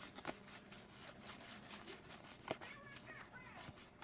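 Faint scattered clicks and rustles of Magic: The Gathering trading cards and booster-pack wrappers being handled.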